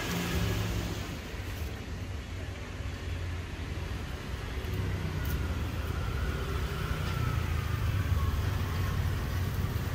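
Steady low rumble of background road traffic.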